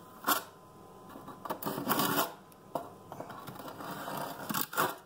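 Steel trowel spreading thinset mortar onto a wall, a handful of scraping strokes of varying length.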